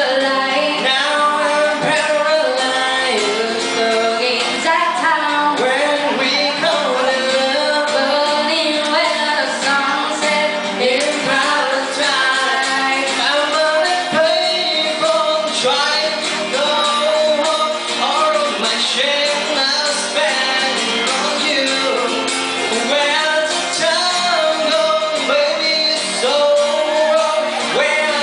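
Live band playing a pop song with a singer's voice over it.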